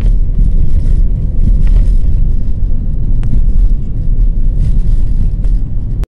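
Road and wind noise of a moving car heard from inside the cabin: a loud, steady low rumble, with a couple of faint clicks.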